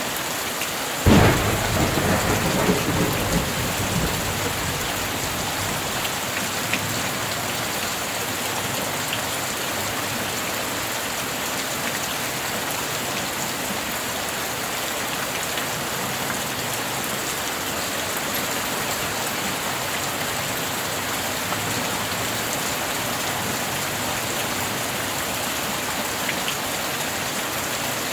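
Steady heavy rain, with a sharp crack of thunder about a second in that rolls and rumbles away over the next few seconds.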